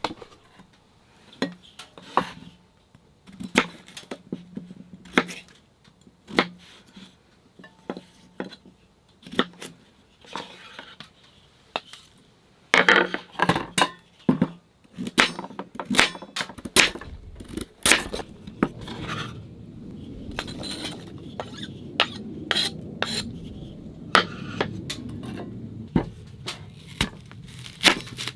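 Metal cookware and utensils clinking and knocking in irregular, sharp strikes as pots, lids and spoons are handled and set down, busiest about halfway through. A steady low rushing noise runs underneath during the second half.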